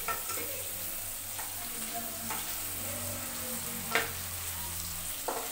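Paneer cubes sizzling in hot oil in a non-stick pan, a steady hiss, while a spatula stirs them. The spatula scrapes and knocks against the pan a few times, loudest about four seconds in.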